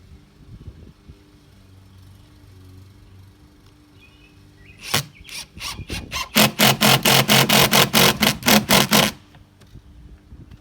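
Handheld power drill driving a screw: starting about five seconds in, a loud run of short rapid pulses, about five a second, lasts roughly four seconds and then stops.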